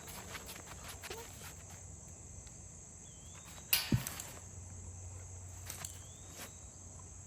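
Outdoor background of faint insect chirping over a steady low hum, broken by one short, sharp knock a little under four seconds in.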